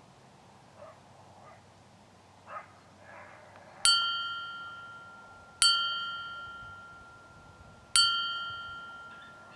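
Three bright bell-like ding sound effects, each one struck and then ringing away over a second or two. The first comes about four seconds in and the other two follow about two seconds apart, each timed with a red arrow marking a coyote.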